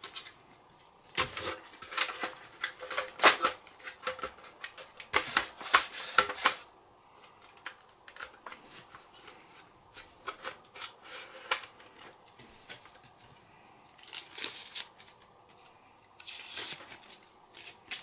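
Adhesive tape being peeled and ripped off in short, scratchy pulls, several times, with small clicks from handling plastic parts between them. The longest pull comes near the end.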